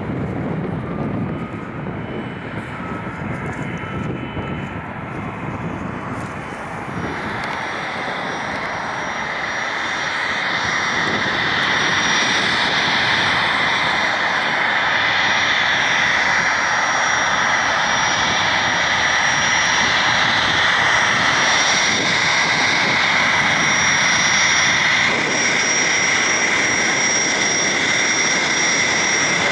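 Boeing 767-200 airliner's jet engines at taxi power, a steady rushing drone with a thin high whine. The sound grows louder from about seven seconds in, then holds steady.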